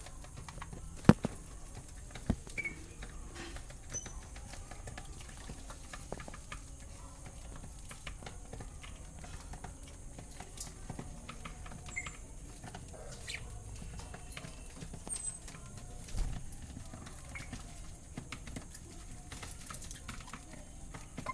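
Pet birds moving about: scattered light taps and clicks, one sharper knock about a second in, with a few short faint chirps.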